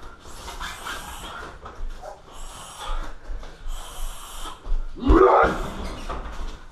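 Sharp, breathy exhalations from a Muay Thai fighter, repeated every second or so, and about five seconds in a loud thud as a shin kick strikes a car tyre.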